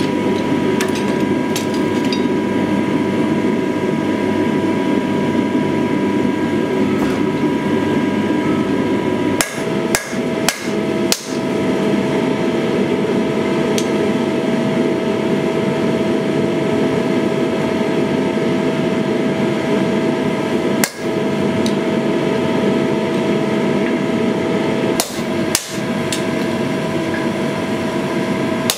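Continuous hand-hammering on red-hot steel on an anvil, the hammer striking a handled hot punch set on a small square pommel blank, with the anvil ringing steadily under the blows. The blows stop briefly a few times.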